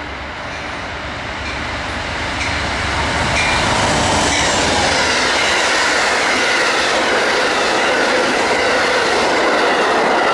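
Amtrak passenger train led by a GE P42DC diesel-electric locomotive approaching and rolling past, growing louder over the first few seconds. It then holds at a steady level with the rumble and clatter of the wheels on the rails.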